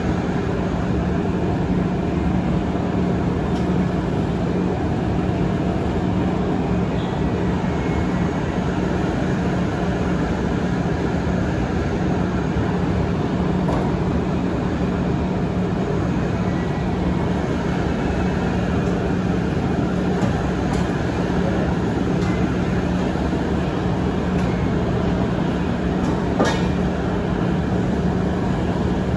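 A steady machine drone with a constant low hum, unbroken throughout, with a couple of faint clicks near the end.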